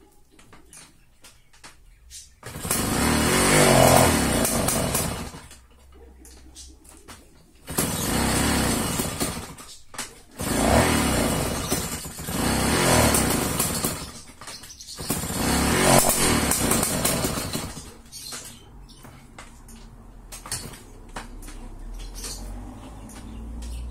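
A Romet Komar 232 moped's small two-stroke engine being pedal-started. It fires in surges of two to three seconds that rise and fall away, about five times, with a lower sound in between.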